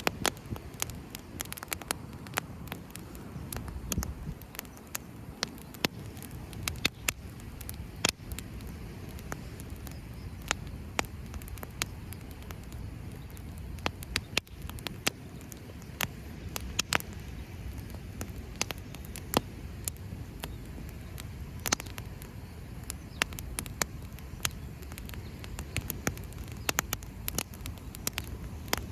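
Campfire crackling, with many irregular sharp pops and snaps, several a second, over a steady low rumble.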